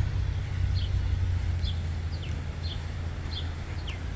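Steady low rumble of city traffic, with a small bird chirping over it: short, high chirps, some falling in pitch, repeating every half second or so.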